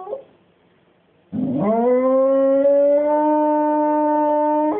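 Springer spaniel howling on cue: the tail of one howl, then after about a second's pause a long howl that slides up in pitch and holds it steady.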